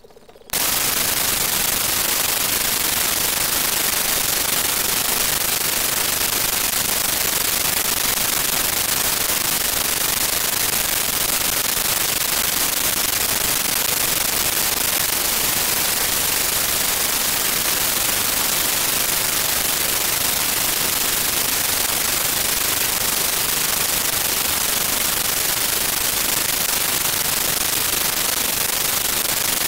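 Loud, steady static hiss spread evenly from low to very high pitch, cutting in suddenly about half a second in and holding unchanged: digital noise from a corrupted audio track, matching the broken-up picture.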